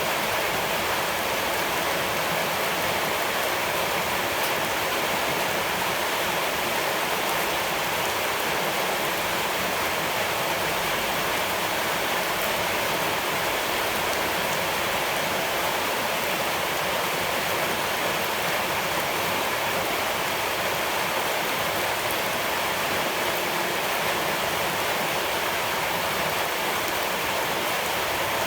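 Running water rushing steadily, an even hiss with no distinct splashes or changes.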